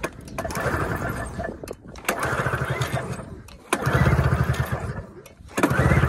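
Recoil starter of a 1996 Ski-Doo MXZ 583 twin two-stroke pulled again and again with the spark plugs out, the engine spinning over freely in a fast chuffing rhythm on each pull, several pulls in a row. The cylinders are flooded, and the cranking blows the raw fuel out through the plug holes.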